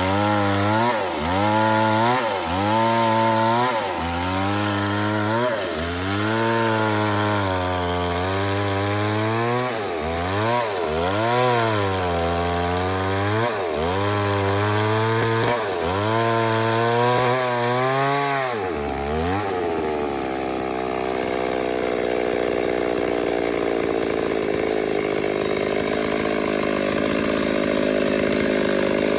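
Chainsaw cutting wood, its engine pitch dipping and recovering over and over, about every second or two, as the chain loads up in the cut. A little past halfway it settles into a steady, higher-pitched run.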